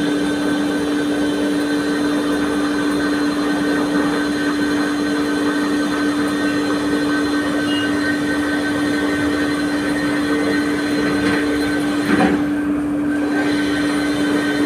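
Wire-cut EDM machine running: a steady machine hum with a constant pitched tone over a hiss, and a short knock about twelve seconds in.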